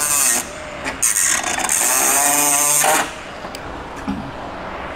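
Cutoff wheel cutting through rusty truck sheet metal, the last cut to free a rotted section for replacement. A short burst right at the start, then a loud run of about two seconds with a hissing edge that stops about three seconds in.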